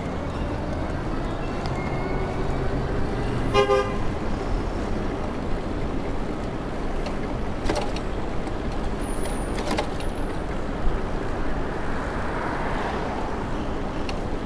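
Steady city street traffic noise, with a short car horn toot about three and a half seconds in and two sharp clicks near eight and ten seconds.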